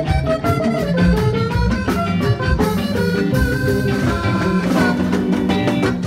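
Live church band music: electric bass guitar and drum kit playing an upbeat, rhythmic groove, with other pitched instruments carrying a melody.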